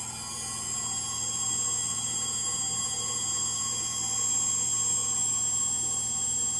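Frigidaire Gallery front-load washer spinning fast in its final spin, a steady high-pitched whine over a low hum that grows slightly louder in the first couple of seconds. The whine is from worn motor bearings.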